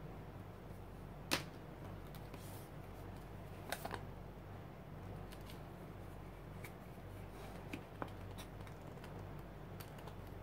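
Small clicks and taps of hands handling a paintbrush and a small paint container: one sharp click about a second in, a short cluster near four seconds and a few fainter ticks later, over a faint steady low hum.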